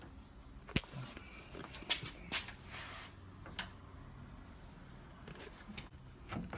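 A few sharp, scattered clicks and knocks with some soft rustling as a Nissan 350Z door handle and its surrounding parts are handled and worked loose from the door.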